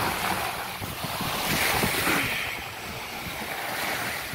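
Wind buffeting the microphone over the steady wash of ocean surf, swelling briefly about halfway through.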